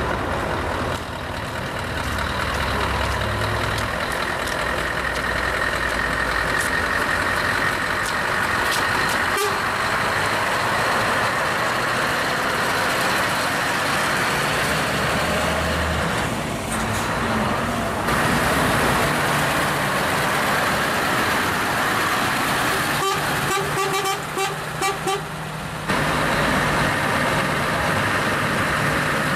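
Heavy show trucks running and driving slowly past, with a few short air-horn toots about three quarters of the way through.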